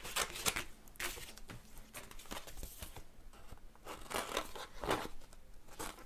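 Scissors cutting through thin cereal-box card in short, irregular snips.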